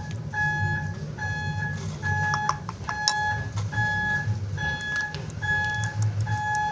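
An electronic beeper sounds over and over at a steady pace, a little more than once a second, each beep a single steady tone. A low rumbling hum runs underneath, and a few small clicks come near the middle.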